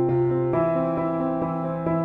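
Background music played on piano or electric piano, with sustained chords that change about half a second in.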